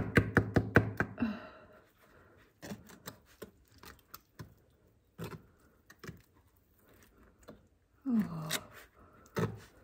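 A metal trowel scraping and tapping as mortar is spread onto the stone back wall of a fireplace. A quick run of sharp strokes comes in the first second, then scattered short scrapes and clicks follow.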